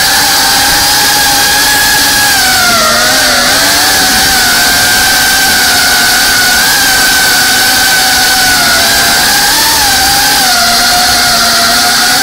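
FPV racing drone's brushless motors and propellers whining at high speed, heard from the onboard camera with rushing prop wash and wind noise. The pitch holds mostly steady and dips and recovers with throttle changes, most clearly a few seconds in.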